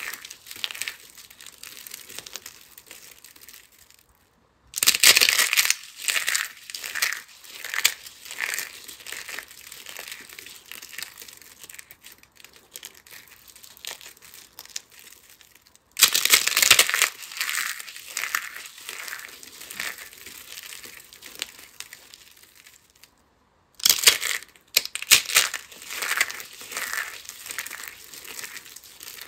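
Handfuls of broken hard soap pieces squeezed and crumbled between the fingers: crisp crunching and crackling. It comes in three bouts, each loudest at its start and trailing off into lighter crumbling.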